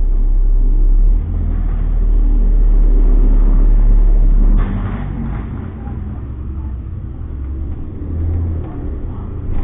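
City bus engine and road rumble, loud and steady, easing off about four and a half seconds in with a short burst of higher noise as it drops.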